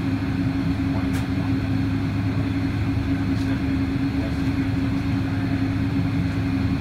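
Steady cabin noise inside a Boeing 777-200 taxiing with its engines at idle: a constant hum with a low drone underneath.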